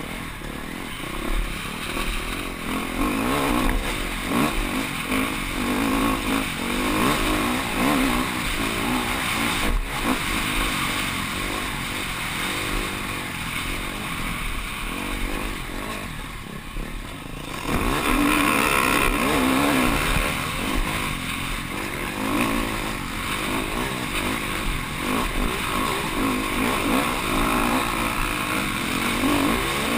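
Off-road dirt bike engine heard from the rider's helmet camera, revving hard with its pitch rising and falling through the gears. It eases off a little past halfway, then opens up again louder.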